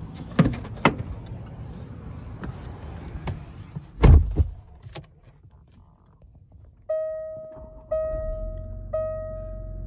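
Land Rover SUV door being opened with a couple of clicks, then slammed shut with a heavy thunk about four seconds in. From about seven seconds the dashboard warning chime sounds, a clear bell-like tone repeating about once a second, while the engine comes to a low idle beneath it.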